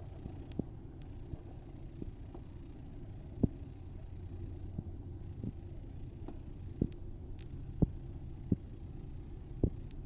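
Low steady hum inside a pickup truck's cab, with about ten faint, irregular clicks and taps scattered through it.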